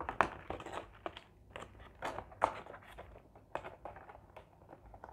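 Paper wrapper on a piece of fried chicken crinkling as it is handled, with taps from a cardboard food box: an irregular run of sharp crackles, loudest about a quarter second in and again near two and a half seconds.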